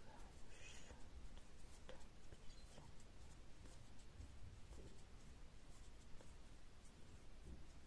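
Faint rustle and light scratching of a 2 mm metal crochet hook pulling pink cotton-blend yarn through, working chain stitches one after another, with a few soft ticks.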